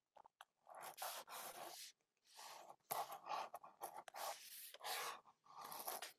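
Pen nib scratching across drawing paper in quick scribbling strokes: about five strokes of up to a second each, with short pauses and a few small ticks between them.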